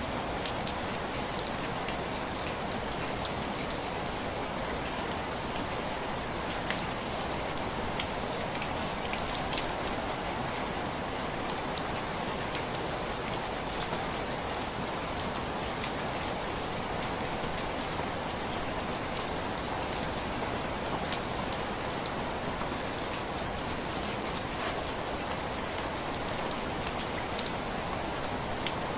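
Steady rain with many individual drops tapping sharply on window glass.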